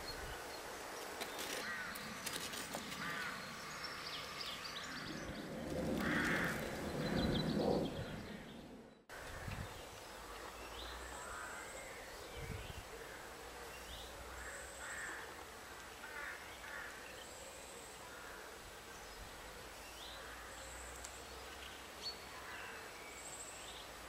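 Outdoor birds calling. The loudest stretch is a run of harsh calls about six to eight seconds in. After a cut near nine seconds the calls are fainter, with a short high note repeating about every two seconds.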